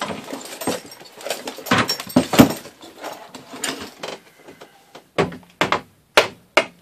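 Clattering and knocking on the wooden slats of a cedar patio table, ending in about five sharp hammer blows close together that knock a board loose from the tabletop.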